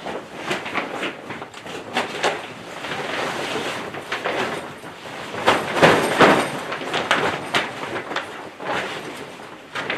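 Grow tent fabric being pulled and stretched over its steel tube frame: rustling and scraping with repeated short knocks and clicks, busiest and loudest about halfway through.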